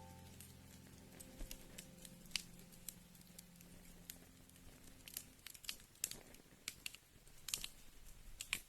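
Wood fire crackling, with irregular sharp pops and snaps over a faint hiss. Soft held music notes fade out over the first few seconds.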